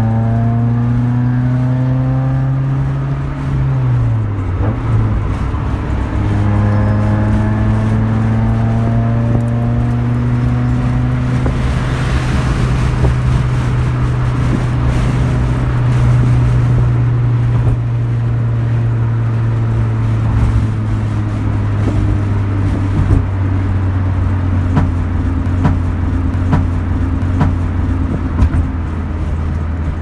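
Honda Civic EG's four-cylinder engine heard from inside the cabin while driving. Its note climbs, drops sharply about four seconds in as it changes gear, climbs again, then settles into a steady cruise over road noise.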